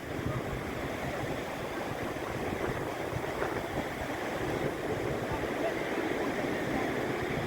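Steady rushing of surf breaking and washing up the beach, mixed with wind buffeting the microphone.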